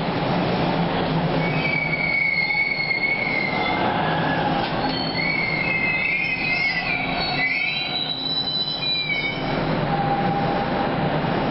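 Toronto subway train rolling past the platform: a steady rumble of the cars on the track, with its steel wheels squealing on the rails in wavering high-pitched squeals from about two seconds in until near the end.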